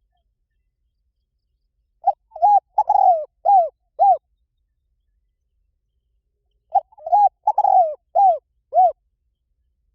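Spotted dove cooing: two phrases of about five short, arching coos each, a few seconds apart.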